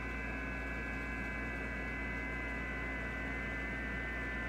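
Xiegu G90 HF transceiver's loudspeaker playing received audio on the 20 m FT8 frequency: steady band noise with several steady FT8 data tones, over a low hum.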